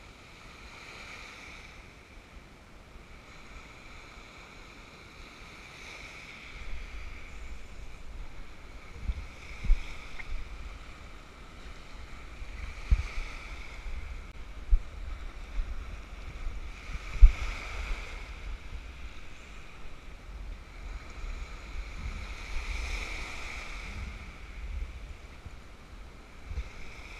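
Small sea waves washing in over shore rocks, swelling and fading every four or five seconds. From about a quarter of the way in, wind buffets the microphone with a low rumble and a few sharp gusts.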